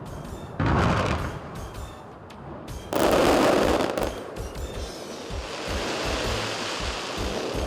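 Fireworks bursting, with two loud booms, one about half a second in and one about three seconds in, and repeated thumps and crackling in between.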